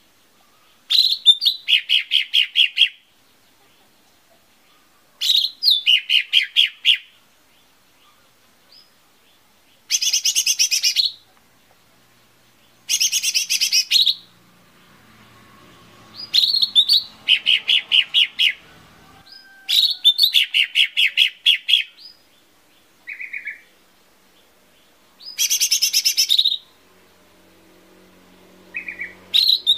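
Cucak ijo mini (lesser green leafbird) singing: about eight loud phrases, each a quick run of repeated clear notes lasting one to two seconds, coming every three to four seconds, with two short single notes between the last phrases.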